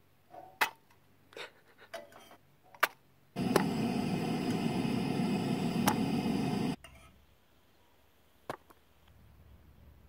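A few light clicks and clinks of a pan and utensil against a ceramic plate as pancakes are served. Then a steady rushing noise that starts and stops abruptly, lasting about three seconds, followed by one more click.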